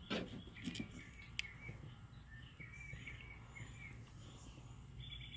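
Birds chirping faintly in the background, a series of short repeated chirps, with a few small clicks near the start.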